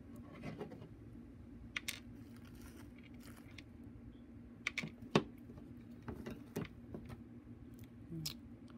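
Small metal jewellery findings and pliers being handled on a bead mat: scattered light clicks and taps as jump rings and pliers are picked up, the sharpest about five seconds in, over a steady low hum.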